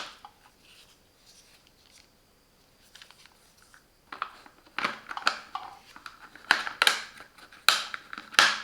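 Plastic packaging and storage case being handled: a run of sharp clicks and rustles starting about four seconds in, after a few seconds of near quiet.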